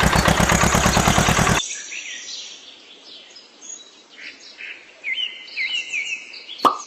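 Loud music cuts off abruptly about one and a half seconds in, giving way to birds chirping in short repeated notes. Near the end comes a single plop.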